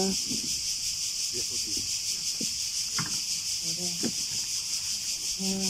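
A steady chorus of insects, heard as a dense, evenly pulsing high hiss, with a couple of faint knocks and a brief low murmur of a voice near the end.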